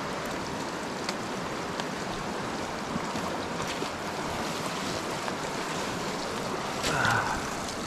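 Small creek running over rocks, a steady rushing of water, with a few faint ticks and a brief louder sound about seven seconds in.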